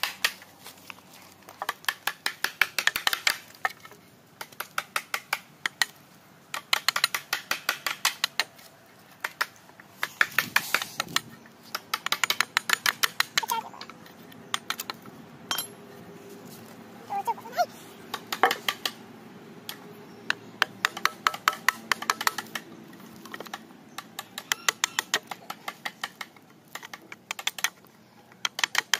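A hand tool worked against a wooden strip, making quick runs of sharp light taps or clicks, about ten a second, in bursts of one to two seconds with short pauses between.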